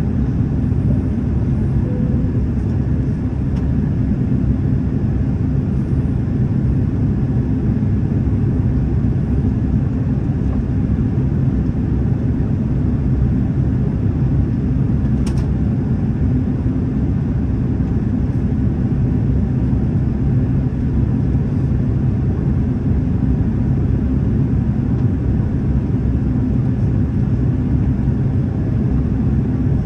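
Steady low rumble of an airliner's engines and rushing air, heard from inside the passenger cabin on approach to landing, with a faint click about halfway through.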